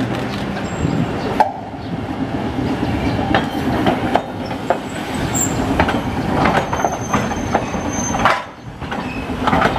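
Hankai Tramway type 700 streetcar rolling past close by through a track junction, its wheels knocking again and again over the rail joints and crossings, with a few brief high-pitched wheel squeals.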